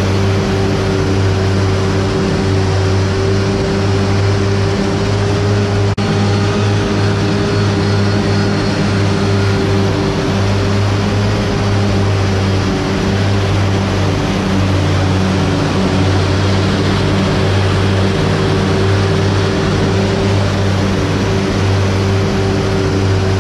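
Steady, unbroken mechanical drone: a low hum with a higher steady tone above it, with one brief break about six seconds in.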